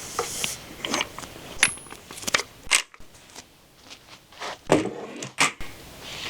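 Household handling sounds: a series of light knocks, clicks and short scrapes, with a quieter stretch in the middle.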